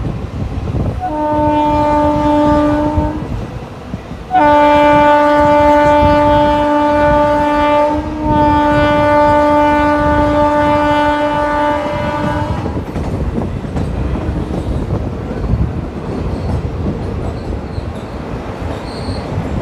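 Diesel locomotive air horn sounding a short blast, then a long blast of about eight seconds with a brief dip midway. Under it the passenger coaches' wheels clickety-clack steadily over the rail joints.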